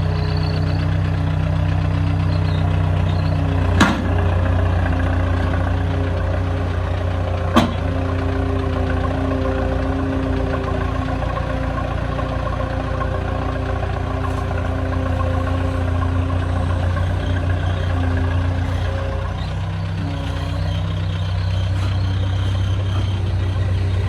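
Skid steer loader's diesel engine running steadily, with two sharp knocks, about four seconds in and again about eight seconds in.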